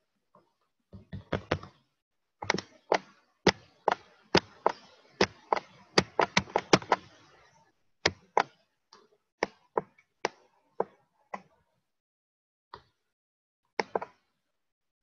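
A series of sharp taps at an uneven pace, coming thickest in the middle at two or three a second, then thinning out to a few lone taps near the end.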